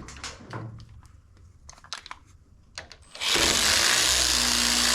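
A few light clicks and taps of tools on the battery terminal bolts. About three seconds in, a cordless power tool starts and runs loudly and steadily, spinning a battery terminal bolt off.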